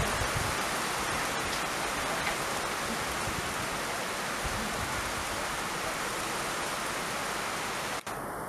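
Heavy rain pouring down steadily, a dense even hiss with no distinct train sound standing out; it drops out for an instant near the end.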